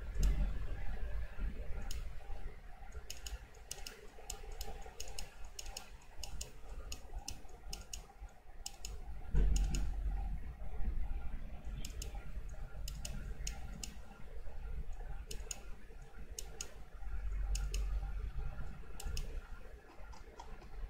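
Computer mouse and keyboard clicking: irregular single clicks and quick runs of clicks, with a low thump about nine seconds in.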